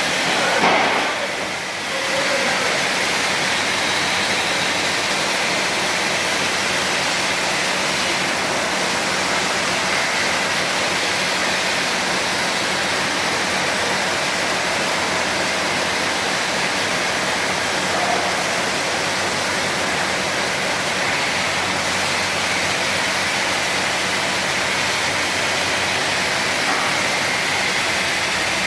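Automatic carpet washing machine running: a steady rushing noise like running water, with a brief surge and dip in level about a second in.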